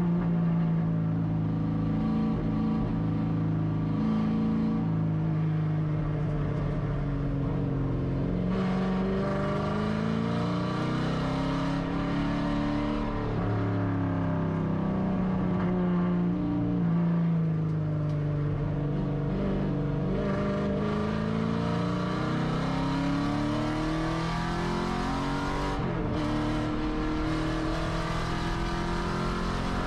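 Camaro Z/28.R race car's 7.0-litre LS7 V8 heard from inside the cockpit on track, its revs rising and falling again and again as the car accelerates and slows through the corners.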